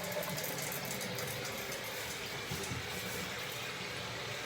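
Bathroom sink faucet running water into the basin to test that the cleared drain now flows. It is a steady rush that cuts off suddenly at the end.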